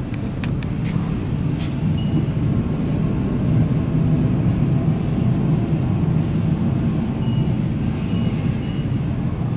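Trak DPM CNC bed mill running with a steady low hum while its head is driven along the Z axis. A few light clicks come in the first two seconds.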